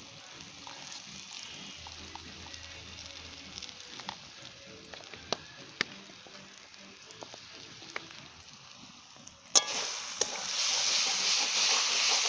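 Spice paste with chilli powder and turmeric frying in oil in a kadai, a low steady sizzle with a few sharp ticks of the spatula against the pan as it is stirred. About three-quarters of the way through, a much louder hiss starts suddenly and holds.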